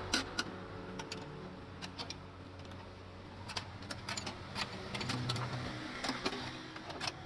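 Steel ring spanners clicking and clinking against the nuts on a car's front strut top mount as they are worked loose by hand: scattered, irregular sharp metal ticks.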